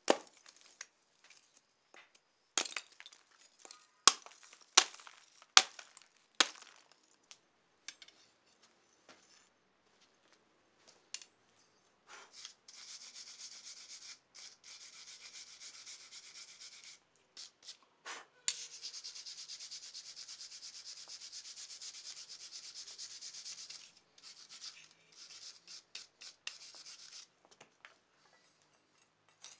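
Lump charcoal being chopped on a wooden block: about six sharp cracks in the first seven seconds. Then a wire brush scrubs scale off a glowing steel bar on the anvil, cleaning it for a forge weld, in two long spells of steady, rapid scratching.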